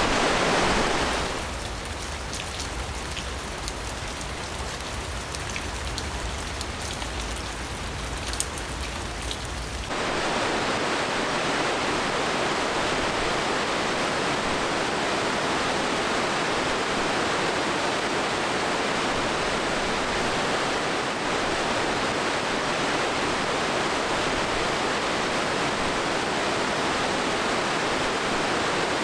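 Steady rushing hiss of flowing glacial meltwater. About a second in it gives way to a quieter stretch with a low rumble and scattered faint clicks. The full rush returns about ten seconds in.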